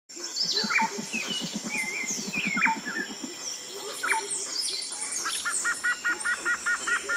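Woodland birdsong: several birds chirping and calling over a steady high-pitched hum. There is a fast low pulsing trill in the first half and a quick run of repeated two-note calls near the end.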